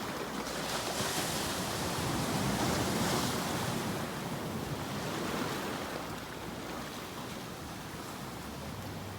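Sea waves washing in and breaking on the shore, a steady rush of surf that swells in the first few seconds and eases off in the second half.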